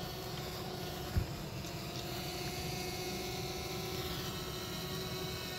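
DJI Mavic quadcopter drone in flight, its propellers giving a steady hum with a fainter higher whine. A brief low thump about a second in.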